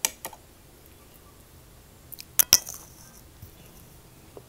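Metal fork clinking against a ceramic plate while gathering noodles: a sharp clink right at the start, a louder pair of clinks about two and a half seconds in, and a few faint taps.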